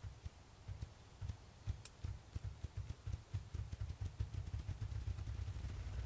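Male ruffed grouse drumming on a log: deep, low wingbeat thumps that start slowly and speed up into a rapid whir. This is the bird's spring territorial and courtship display.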